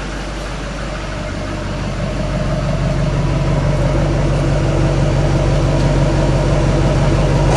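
Truck engine running, heard close at the exhaust tailpipe. It grows louder over the first three seconds as throttle is given, then holds a steady, raised speed.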